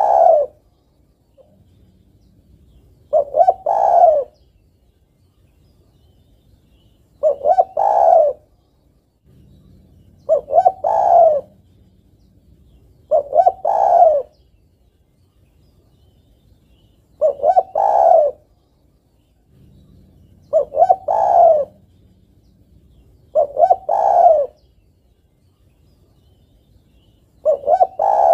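Spotted dove cooing: a short phrase of a few quick notes ending on a longer one, repeated every three to four seconds. It is the call of a hen calling a male, as the keeper presents it, used as a lure to draw wild males.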